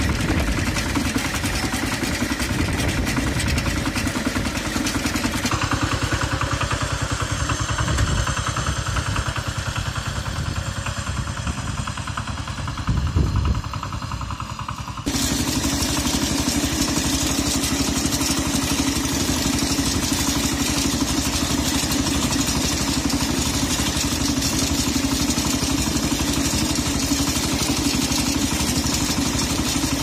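Kentavr MB 1010DE-6 walk-behind tractor's single-cylinder 10 hp diesel engine running steadily while the machine drives along, with a fast, even firing beat. The sound changes abruptly about five seconds in and again about halfway through.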